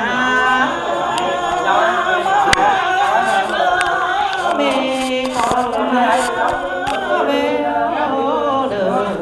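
Several voices singing together without instruments, the sung lines overlapping, in the style of Muong folk singing.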